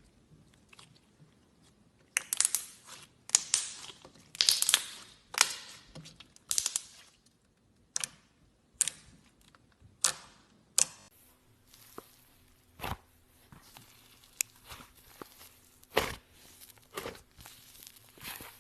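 Slime being squeezed and pressed by hand, giving crackling, popping bursts: a quick run of them at first, then single snaps a second or more apart.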